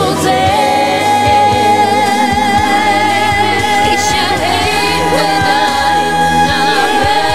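Christian worship song: singing held on long notes with vibrato over a steady instrumental backing.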